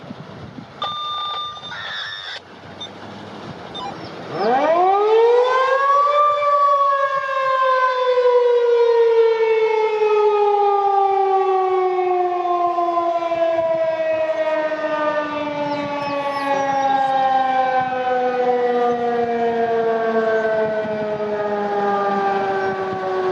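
Federal Signal 2001-DC rotating outdoor warning siren giving a growl: about four seconds in it spins up quickly to its peak pitch, then is cut off and winds down slowly, its pitch falling steadily for the rest of the time. About a second in, a short steady electronic tone sounds before the siren starts.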